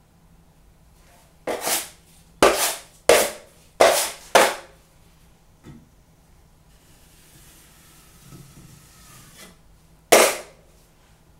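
Steel drywall taping knife scraping sharply against a mud pan's edge while loading and cleaning off joint compound: five quick strokes, then a fainter scraping of compound being spread, and one more sharp stroke near the end.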